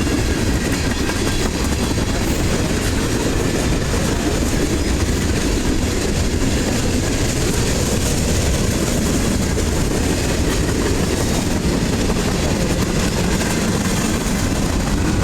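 Freight cars of a passing train rolling by, their steel wheels running on the rails in a steady, loud rumble and clatter.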